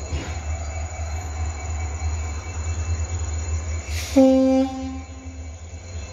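A train horn sounds once about four seconds in: a short single-tone blast, just after a brief hiss, loudest for about half a second and then tailing off. Under it runs a steady low rumble.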